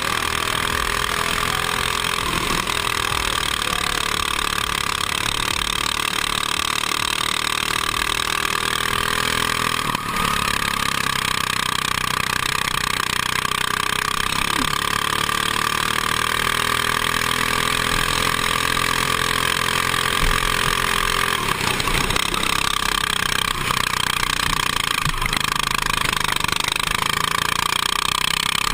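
Go-kart engine heard from onboard, running continuously at racing speed, its pitch rising and falling as the kart accelerates out of corners and slows into them.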